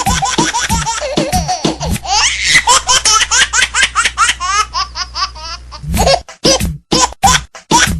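A novelty phone ringtone of laughter set to music, in quick repeated bursts with rising and falling pitch. About six seconds in it turns choppier, with a beat of sharp pulses about three times a second.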